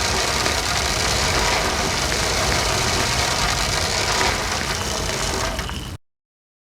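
Loud, steady heavy rain with a deep rumble underneath, cutting off abruptly about six seconds in.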